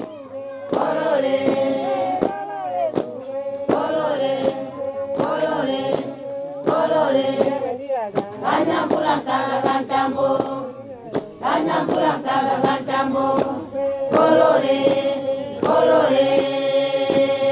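A group of women singing a Chewa rain-prayer song in unison, in phrases of a few seconds with short breaks, over a steady beat of sharp strikes.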